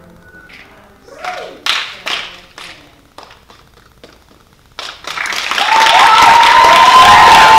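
Audience applause: a few scattered claps at first, then about five seconds in the crowd breaks into loud, full applause with cheering.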